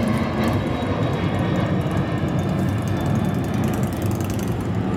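Harley-Davidson Evo V-twin motorcycle with drag pipes running, a loud, steady, low exhaust note.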